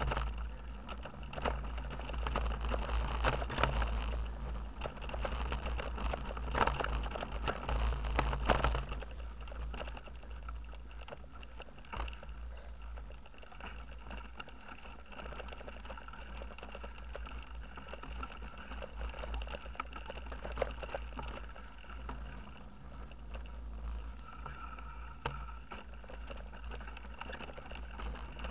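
Mountain bike riding over a dirt woodland track: wind buffets the microphone with a steady low rumble, while the bike and camera mount rattle and knock over bumps. The knocks are busier and louder for the first nine seconds or so, then the ride goes steadier.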